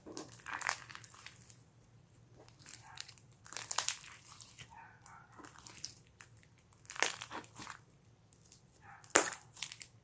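Homemade clear slime being squeezed and pressed by hand, giving irregular bursts of crinkly crackling and popping. The loudest crackle comes about nine seconds in.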